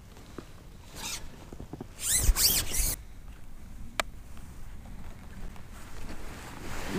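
Handling noises on a fishing boat: rustling and swishing of rain gear and gear being moved, loudest from about two to three seconds in with a low thud, and one sharp click about four seconds in.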